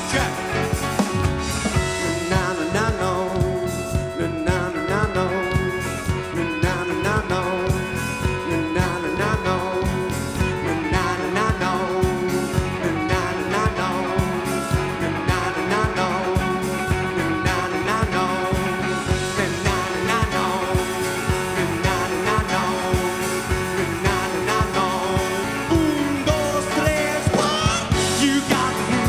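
Live rock band playing: a male singer over electric guitar and a drum kit keeping a steady beat.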